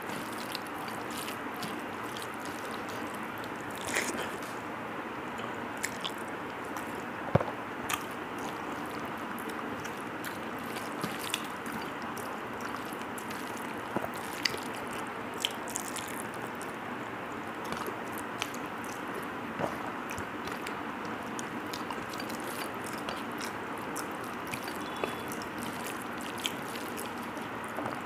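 Fingers mixing cooked rice with dal on a steel plate: soft squishing with scattered small clicks and taps against the plate, over a steady hiss.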